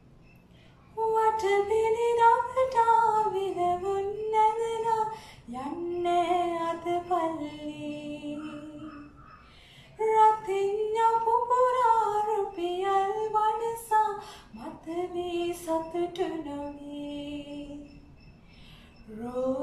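A woman singing a Sinhala song unaccompanied, in long held phrases with short pauses for breath between them; the singing starts about a second in.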